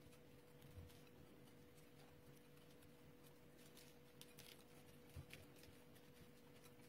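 Near silence: room tone with a faint steady hum and scattered faint ticks of sesame seeds being sprinkled by hand onto dough rolls on a baking-paper-lined tray.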